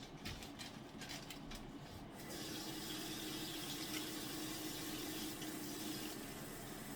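A few light knocks of handling, then a kitchen tap turned on about two seconds in, water running steadily into the sink to wash potatoes.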